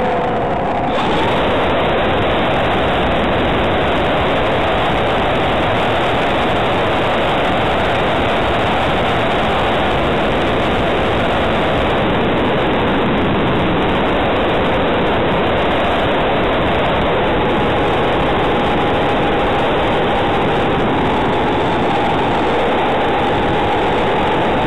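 Steady rush of wind over a camera riding on a radio-controlled model aeroplane in flight. The motor's faint whine shifts a little in pitch underneath.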